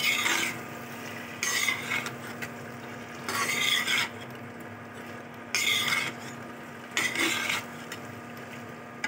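A spatula stirring chicken chili in a non-stick wok, scraping through the thick sauce and pan in five short strokes about a second and a half apart.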